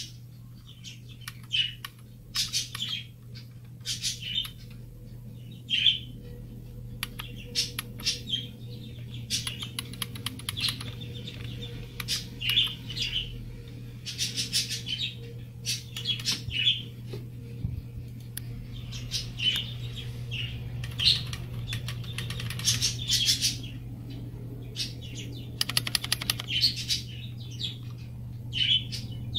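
Typing on an IBM Model M2 buckling-spring keyboard: bursts of sharp, clicky keystrokes, sometimes single keys and sometimes quick runs, with short pauses between, over a steady low hum.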